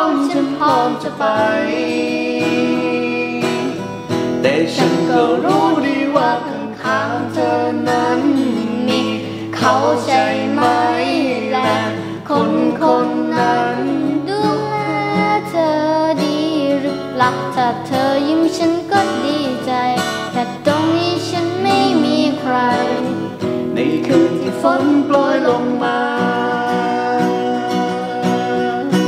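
A girl singing a slow Thai luk thung song to an acoustic guitar accompaniment. Her voice drops out near the end, leaving the guitar playing on its own.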